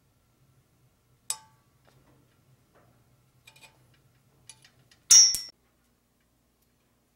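Handling noises on a steel bike frame: a sharp click about a second in, a few light ticks, then a louder metallic clatter with a brief high ring about five seconds in, as a small black cap is fitted at the bottom-bracket shell.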